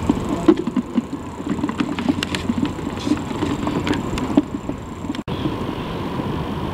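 Steady outdoor noise of wind and sea on an open harbour pier, with a few light clicks scattered through it. The sound breaks off for an instant a little after five seconds in.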